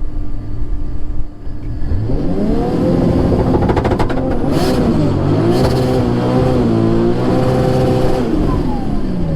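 Turbocharged Toyota 2JZ-GE inline-six engine in a Nissan 240SX revving hard: the pitch climbs about two seconds in, holds with two brief dips, then falls away steadily near the end as the throttle comes off.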